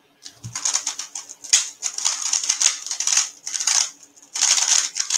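A 3x3 speedcube being turned very fast in a timed solve: a rapid stream of plastic clicks and clacks, with a brief lull about four seconds in.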